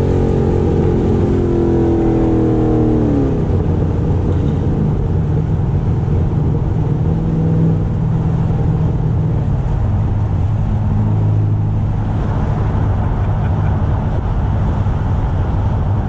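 Supercharged 2006 Corvette V8 heard from inside the cabin at highway speed: the revs fall away over the first three seconds, then settle into a steady low drone under road noise. The engine is misfiring and making no power, running rough enough that it sounds horrible.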